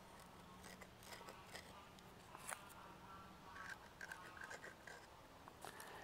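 Faint scraping and small creaks of a steel knife tip being twisted into a hole in a green wooden branch, reaming it out, with scattered light ticks.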